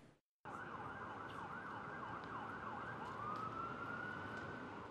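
Faint emergency-vehicle siren over steady street noise. It yelps rapidly up and down for a couple of seconds, then switches to one long rising wail that levels off and holds.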